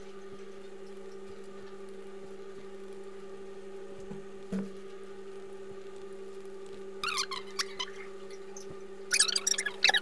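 A steady low hum on two tones, with a soft knock about halfway through and bursts of high-pitched chirping fragments near the end.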